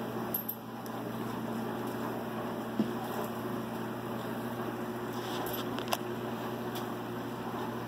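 Steady low mechanical hum, like a household appliance or fan running, with two small clicks about three and six seconds in as coins are set into a foil boat.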